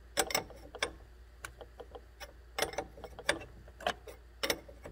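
Irregular metal clicks, about one or two a second, from a 17 mm wrench working the forcing screw of a double flaring tool as it presses the first stage of a double flare into a nickel-copper brake line.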